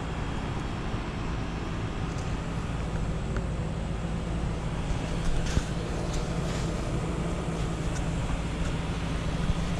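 2008 Trane XB13 heat pump running steadily in heating mode: a constant compressor hum with a low drone and outdoor fan noise over it.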